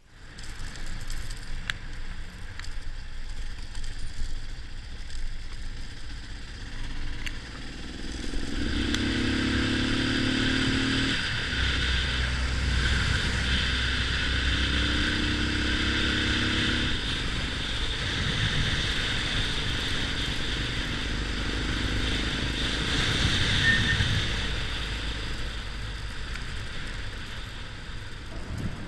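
Yamaha XT 600 single-cylinder motorcycle engine running under way, pulling up in pitch twice, about eight and twelve seconds in, with a steady rush of wind.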